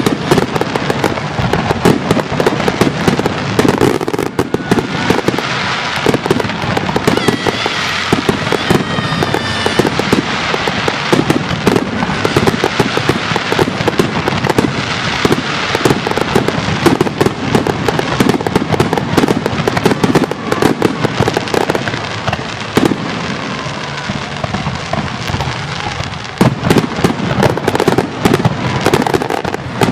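Aerial fireworks going off in a dense, continuous barrage of bangs and crackles.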